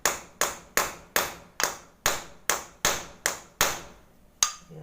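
Hammer striking the rivets of a motorcycle clutch housing, setting them against a flat backing piece: a steady run of sharp metallic blows about two and a half a second, with a short pause near the end.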